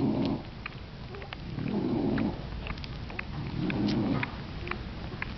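An English bulldog breathes audibly while nursing, one noisy breath about every two seconds. Her newborn puppies make short, faint, high squeaks and clicks as they suckle.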